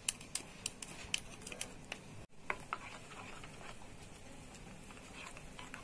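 Plastic spatula stirring egg batter in a glass bowl, with irregular light clicks and taps of the spatula against the glass. The sound drops out for an instant about two seconds in.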